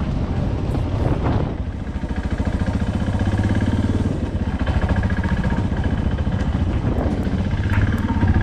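Suzuki DR650's single-cylinder four-stroke engine running under way off-road, a steady rapid firing beat that pulls evenly after a brief dip about two seconds in.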